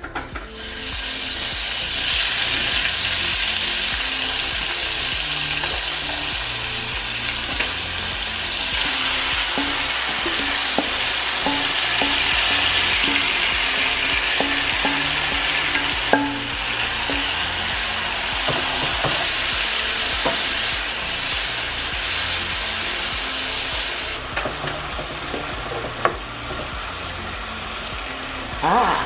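Marinated beef strips and sliced onions hitting hot oil in a ceramic non-stick frying pan and sizzling loudly, the sizzle starting about half a second in. Scattered clinks and scrapes from a wooden spatula against a metal bowl and the pan as the meat is scraped in and stirred; the sizzle eases a little near the end.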